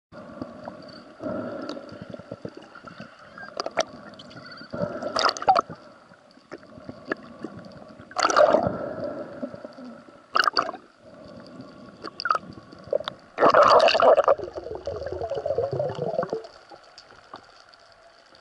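Underwater water noise: irregular bursts of bubbling and gurgling, the loudest about halfway through and again about three quarters in, over a faint steady high tone.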